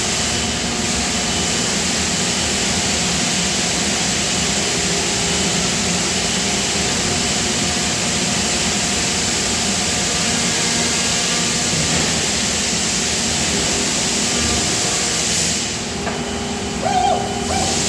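Steady machinery noise on a die casting factory floor: a constant hiss with several steady hum tones underneath. The hiss drops off near the end, and a couple of short high chirps follow.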